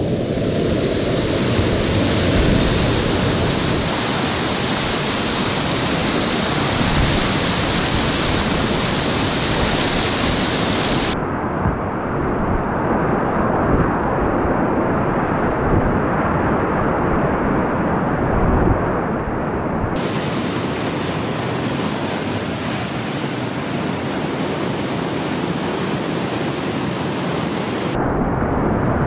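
Whitewater rapids churning around a kayak: a loud, steady rush of river water. A faint high whine sits over the first ten seconds or so, and the hiss loses its top end abruptly about eleven seconds in, coming back about twenty seconds in.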